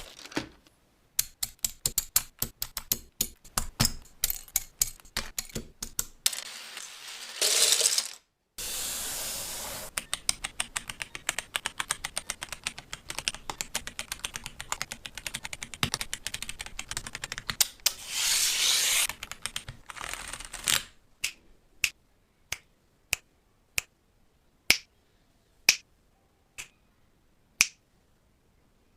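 Mechanical keyboard keys and plastic keycaps clicking and clacking in quick runs, broken by two short hissy swooshes, then single sharp clicks about once a second near the end.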